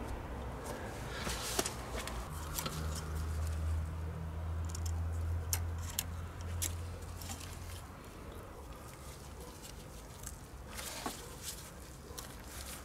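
Scattered light clicks and handling noise from clamp pliers working the small metal clamp onto the narrow end of a rubber CV boot on a driveshaft. A low hum runs from about two seconds in until about eight seconds in.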